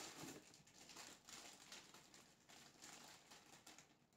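Faint, scattered rustling of plastic packaging as wrapped baby clothes are handled and unwrapped.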